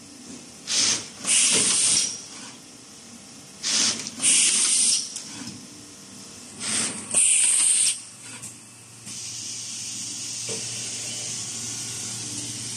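LITAI TTF-520A PET thermoforming machine cycling: sharp compressed-air hisses come in pairs, a short one then a longer one, about every three seconds, one pair per machine cycle. From about nine seconds in, a steady hiss with a low hum takes over.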